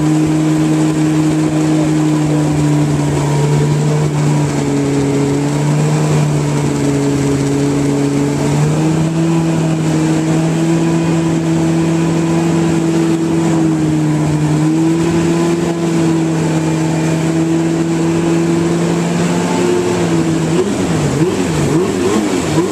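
Yamaha RX-1 snowmobile's four-stroke inline-four engine idling steadily as it warms up. Its pitch steps up slightly about a third of the way in and wavers up and down near the end.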